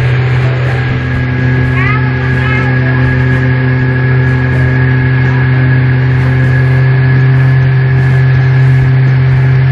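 Motorboat engine running steadily at one pitch, a constant low drone.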